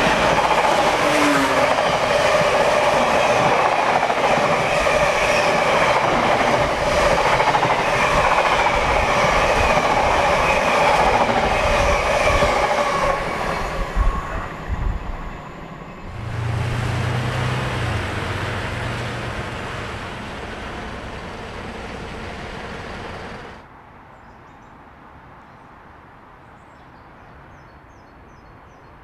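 A train running on the rails, its wheels and running gear clattering loudly and steadily, with a few knocks about halfway through. After a cut, a lower, pitched engine drone fades away, then the sound drops suddenly to a quiet background.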